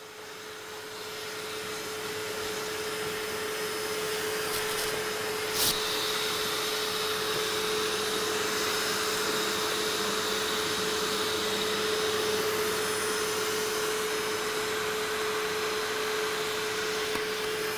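Dust-extraction vacuum running steadily with a steady tone while the orbital sander on its hose is stopped; a single sharp click about five and a half seconds in.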